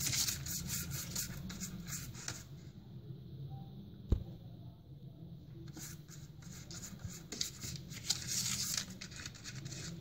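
Silicone pastry brush stroking oil over a paper liner in a metal cake pan: runs of quick rustling, scratchy strokes, easing off for a few seconds in the middle, with a single short knock about four seconds in.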